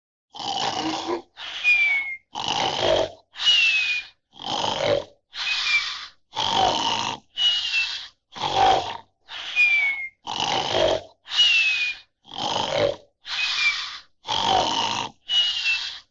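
A quick series of short animal-like grunting roars, about one a second. Each burst is cut off cleanly, like separate sound-effect clips played back to back.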